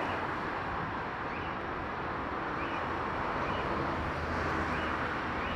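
Steady rushing jet-engine noise of an airliner at the airport, with a low hum growing louder about four seconds in.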